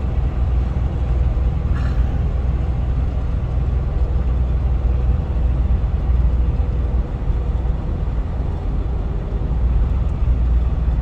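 Steady low rumble of a Land Cruiser's swapped-in 6.0-litre LS V8 running, with one faint click about two seconds in.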